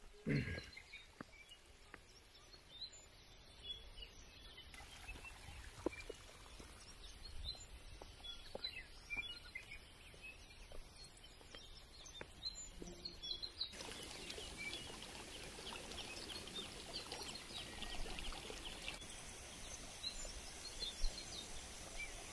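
Faint open-air ambience with small birds chirping here and there, and occasional light clicks.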